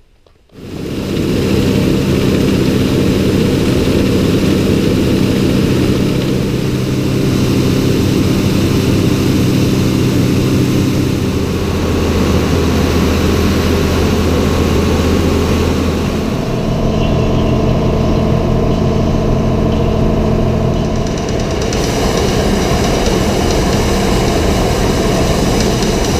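Feed grinder running for a batch of livestock feed: a loud, steady mechanical drone that starts suddenly about half a second in and changes pitch a few times.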